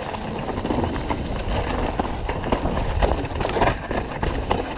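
Mountain bike descending a rough trail: tyres running over dirt and rocks, with a steady rumble and many small rattling knocks from the bike.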